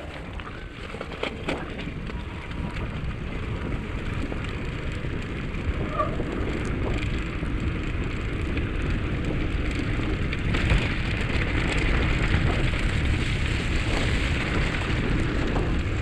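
Wind rumbling on a handlebar-mounted camera's microphone, mixed with bicycle tyres rolling through slush and mud, growing steadily louder.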